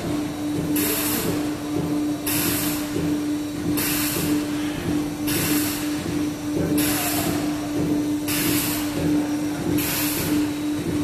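The hydrostatic burst-test bench's machinery runs while it holds a pipe at about 105 MPa (15,000 PSI). There is a steady hum with a regular hiss about every one and a half seconds.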